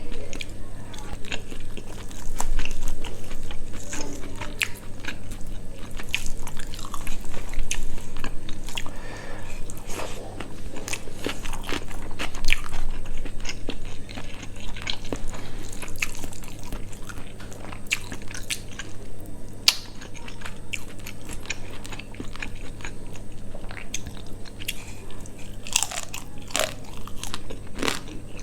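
Close-miked chewing and biting of spicy quail curry with rice: a steady run of wet mouth clicks and crunches.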